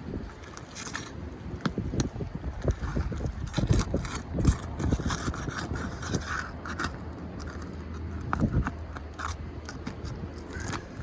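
Irregular scraping and sharp clicks and knocks of hand tools working on asphalt roof shingles, as old shingles are pried loose and lifted, over a low steady rumble.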